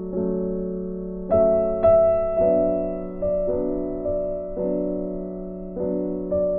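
Slow, gentle piano music: chords and single notes struck every half second to a second and left to ring and fade.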